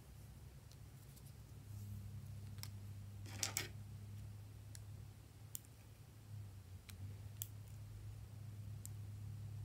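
Small, sharp plastic clicks and taps as purple lip balm tubes are handled, a few seconds apart, with a quick cluster of clicks a little past three seconds, over a faint steady low hum.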